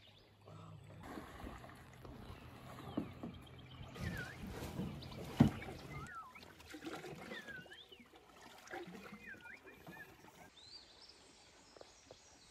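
A canoe being paddled on a quiet river: soft paddle strokes and water noise, with one sharp knock about five seconds in. Birds call with thin whistled notes that rise and fall through the second half.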